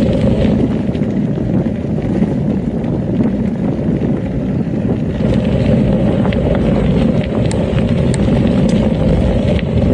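Steady rumble of a gravel bike's tyres rolling over a sandy gravel track, mixed with wind buffeting the microphone, and a few faint ticks scattered through it.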